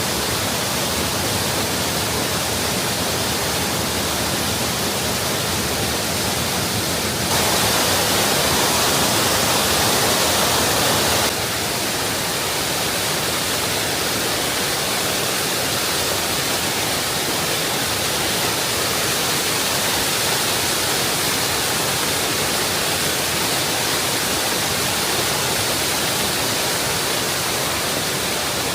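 Campsie Waterfall's water rushing steadily, picked up by a DJI Osmo Pocket 3's built-in microphone. About seven seconds in it turns abruptly louder and brighter for some four seconds, then drops back just as suddenly.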